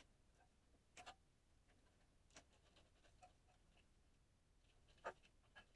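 Near silence, with a few faint clicks and rustles of a wiring harness and its plastic connectors being handled; the loudest click comes about five seconds in.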